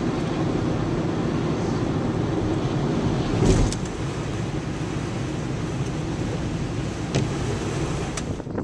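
Steady low rumble of a car on the move, with a brief swell about three and a half seconds in and a couple of faint clicks near the end.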